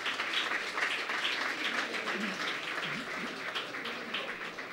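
Audience applauding: many hands clapping in a dense, even spread, with a few faint voices in it about two to three seconds in.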